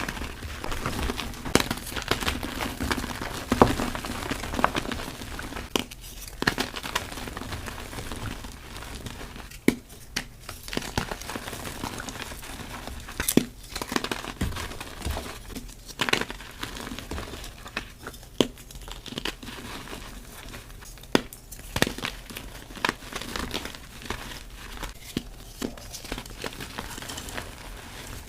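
Soft gym chalk reforms being crushed and crumbled, a continuous gritty crunching broken by irregular sharp cracks every second or two.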